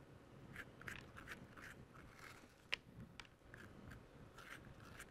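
Large metal spoon scraping the seeds and stringy fibres out of a halved butternut squash: faint, wet scraping and crunching strokes, with one sharp click a little over halfway through.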